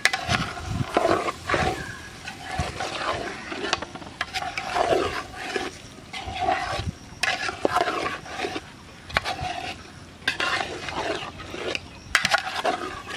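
A metal spoon stirring boiled eggs through thick masala gravy in an aluminium pot, scraping along the bottom and clinking against the side in irregular strokes about once a second.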